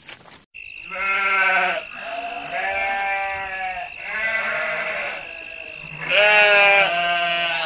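A lamb bleating over and over, about five long wavering bleats in a row.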